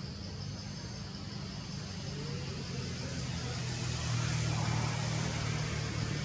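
Low, steady engine hum of passing road traffic, growing louder about four seconds in.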